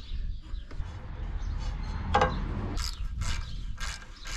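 A few short metallic clicks and scrapes from hand work with a tool on an implement's drive shaft guard while it is being opened for greasing. The clearest is a brief ringing clink about two seconds in.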